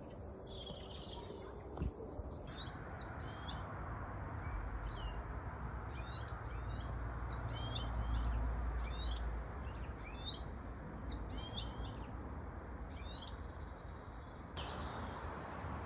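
Small songbirds chirping in quick, high, repeated twittering calls, over a low rumble that swells in the middle.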